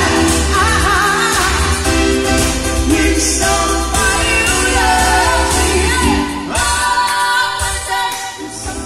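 Live pop song from a small band: female vocalists singing through microphones over keyboard and a heavy bass. The music softens near the end.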